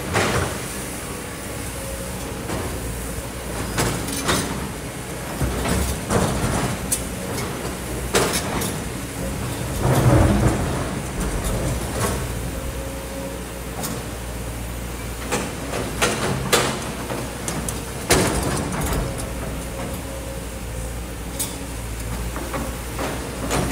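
Kobelco hydraulic excavator's diesel engine running steadily while it digs into a sand and rock slope, with scattered sharp knocks and clatter of the bucket against rock; a louder rumbling stretch comes about ten seconds in.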